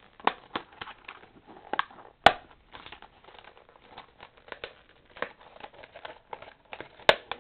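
Clear plastic blister packaging being bent, crinkled and torn apart by hand, with irregular sharp crackles and snaps; the loudest snap comes about two seconds in.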